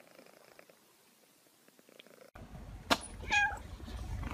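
A long-haired cat purring faintly, close up. About two seconds in, the sound cuts to outdoor background rumble, with a sharp click followed by a short cat meow.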